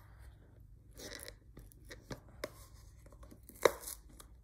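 Cardboard box being picked at and pried open by hand, with fingernails scraping and tapping on the card, a short tearing rustle about a second in, and a sharp snap near the end.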